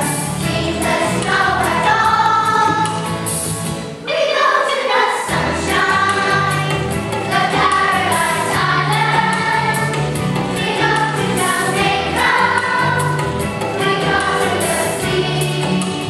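A song sung by a group of voices over a backing track with a steady bass line; the bass drops out for just over a second about four seconds in, then comes back.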